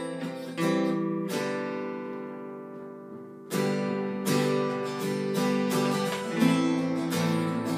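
Two acoustic guitars, one a Yamaha, strumming chords with no singing. About a second in, a chord is left ringing and fades away for about two seconds before the strumming picks up again.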